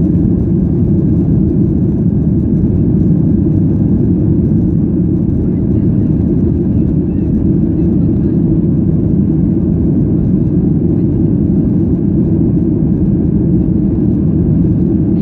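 Steady cabin noise of a Boeing 737-800 climbing after take-off: the drone of its CFM56 jet engines and the rush of air past the fuselage, deep and even.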